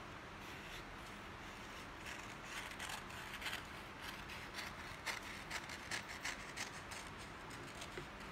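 Scissors cutting a sheet of paper in a run of short, quick snips, starting about two seconds in.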